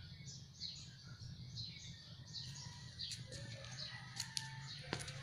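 A dog lapping water from a plastic bowl: a run of quick, wet laps about three a second, with a few sharper clicks in the second half.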